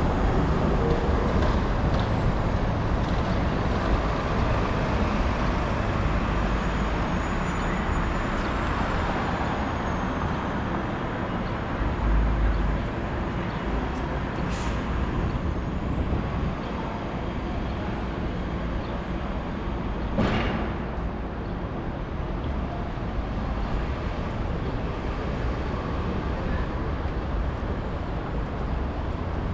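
City street traffic, with heavy vehicles such as buses and trucks running by in a steady wash of road noise. There is a low thump about twelve seconds in and a short sharp hiss about twenty seconds in.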